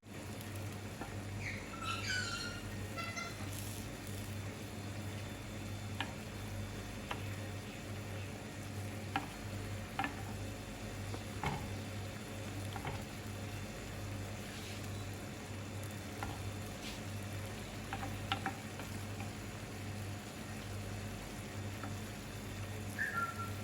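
Chicken cooking in a pot of spiced gravy on the stove, bubbling and sizzling steadily, with scattered light clicks of a utensil against the pot over a constant low hum.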